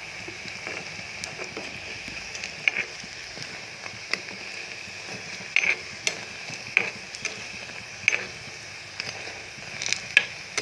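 Semolina pakoras deep-frying in hot refined oil, being fried until crisp: a steady sizzle with scattered pops and crackles.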